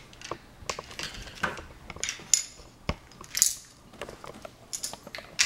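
Tiny laptop screws clinking and rattling as they are picked out by hand, with scattered light clicks and a few brief scraping sounds.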